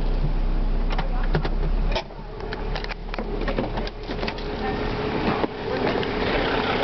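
Clicks and knocks of handling inside a car, over a low rumble in the first two seconds. From about three-quarters of the way through, a truck engine idling outside grows louder.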